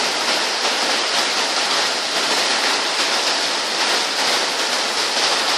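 Heavy rain pouring down, a loud steady hiss with no breaks.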